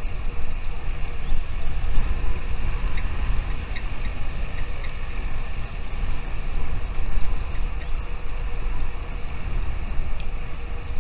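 Steady low rumbling noise throughout, with faint, short, high chirps here and there, likely from the nestlings.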